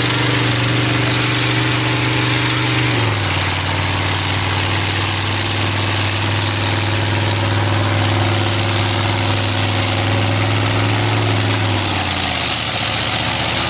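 John Deere tractor's diesel engine running hard under heavy pulling load, a steady drone whose pitch drops about three seconds in and sags again near the end as the engine lugs down against the load.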